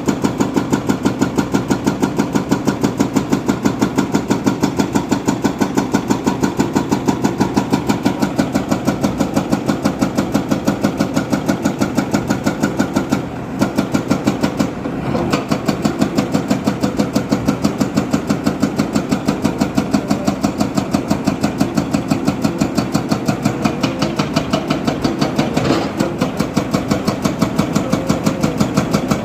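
Diesel engine of a heavy machine running with a steady, even chug, briefly dipping twice about halfway through.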